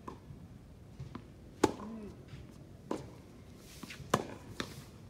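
Tennis rally: two loud, sharp racket-on-ball strikes about two and a half seconds apart, with fainter pops of ball bounces and strokes between them.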